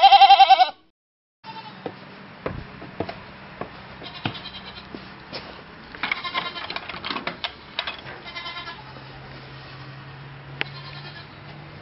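Goats bleating: one loud, quavering bleat right at the start, then fainter wavering bleats in the middle, among scattered clicks and knocks over a low steady hum.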